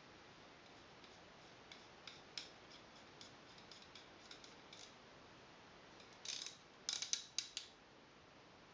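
Small clicks and light scraping of an airsoft gas-blowback hop-up chamber and its aluminium spacer being handled and turned on the brass inner barrel. Scattered faint ticks come first, then a louder run of clicks about two-thirds of the way through.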